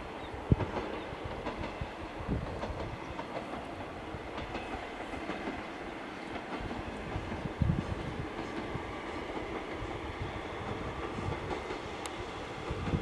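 Diesel railcar train approaching at a distance, its engine running under a steady low rumble, with wheels knocking over rail joints now and then.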